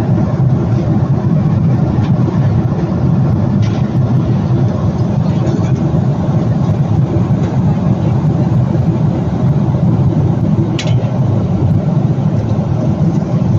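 Steady airliner cabin noise in flight: an even, deep rush of engines and airflow, with a faint click about four seconds in and another near eleven seconds.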